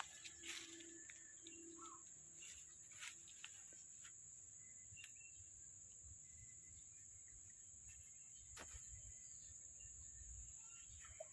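Faint outdoor ambience: insects keep up a steady high-pitched drone throughout, with a few soft clicks and small bird chirps scattered through it.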